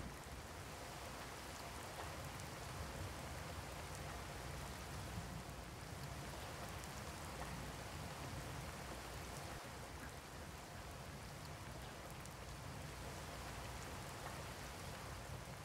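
Steady rain falling during a thunderstorm, an even hiss that holds level throughout.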